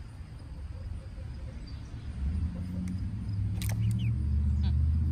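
A low rumble builds from about two seconds in. A few short chirps from young Barred Rock chickens come over it about three and a half seconds in, with another a second later.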